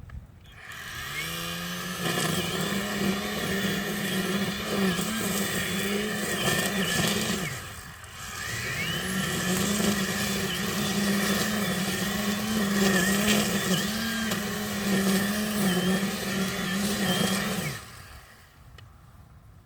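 Ego 56V cordless string trimmer's electric motor spinning up and running at its second speed setting, its pitch wavering as the line cuts grass; it winds down to a stop about halfway through, starts again, and drops off again near the end. The owner says it tends to shut off at second speed under load.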